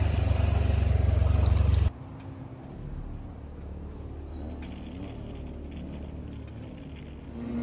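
Motorcycle engine running with a deep, pulsing low rumble, which cuts off abruptly about two seconds in. After it comes a much quieter outdoor background with faint wavering tones.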